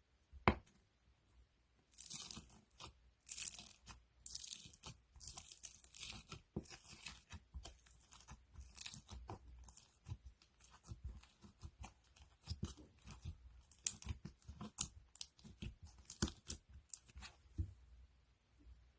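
Crunchy slime being squeezed and pressed by hand, giving dense irregular crackling and popping. A single sharp click comes about half a second in, and the crackling starts about two seconds in.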